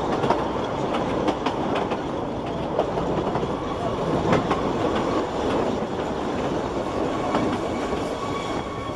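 Ffestiniog Railway narrow-gauge carriages running along the track, heard from an open carriage window: a steady rumble with wheels clicking over the rail joints. A faint, thin wheel squeal sets in about halfway through as the train rounds a curve.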